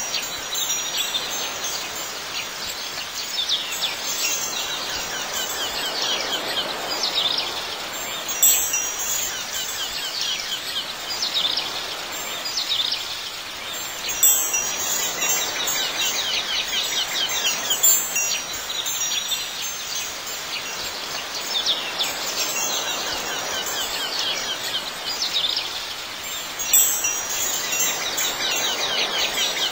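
Wind chimes tinkling continuously, with many overlapping metallic tones and a louder cluster of strikes every few seconds.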